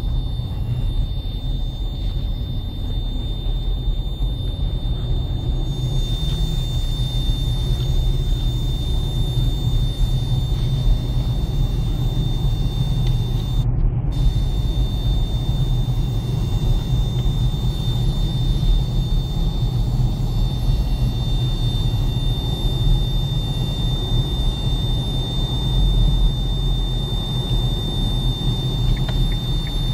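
Steady high-pitched whistle from a new KIA Sportage's factory multimedia head unit while it plays a CD, a fault in the unit, heard over the low rumble of the car's cabin.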